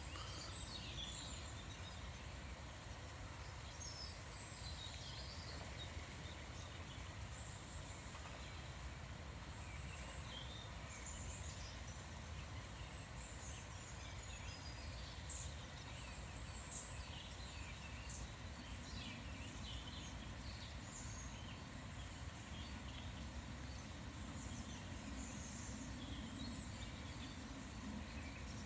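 Small birds singing and calling, many short high chirps scattered throughout, over a steady low background noise.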